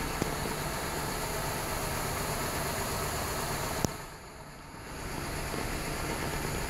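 Steady background noise, an even hiss and rumble with no engine note. There is a sharp click just after the start and another a little before four seconds in, after which the noise drops for about a second and then returns.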